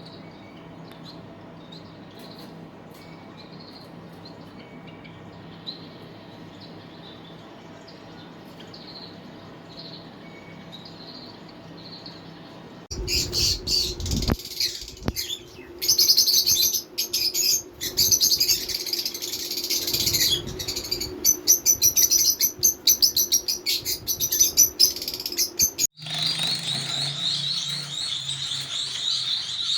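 Pet parrots calling. At first there are faint, soft chirps. About halfway in, loud, rapid chattering calls start suddenly, and near the end they switch abruptly to a different run of repeated calls.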